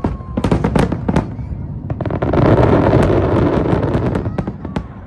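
Aerial fireworks display: several sharp bangs in the first second, then a dense barrage of cracks and bangs, the loudest part, from about two seconds in, thinning to a few last cracks near the end.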